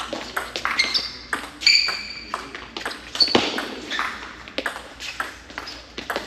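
Table tennis rally: the ball clicks sharply off the rackets and the table in quick, irregular succession, with a couple of brief high squeaks early on.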